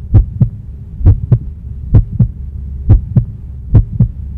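Heartbeat sound effect: double lub-dub thumps about once a second, five in all, over a steady low hum.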